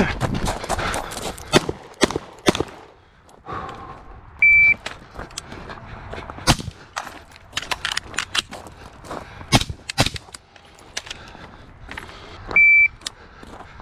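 Electronic shot-timer beeps twice, a short high tone each time, about eight seconds apart, among gunshots from an AR pistol and sharp clatter of gear and movement.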